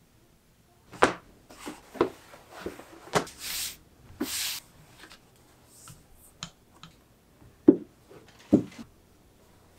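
Handling a large leather hide and paper pattern on a cutting mat: sharp taps and knocks, with two swishes as the hide is slid and smoothed across the mat. Two loud knocks near the end as stainless steel pattern weights are set down on the paper pattern.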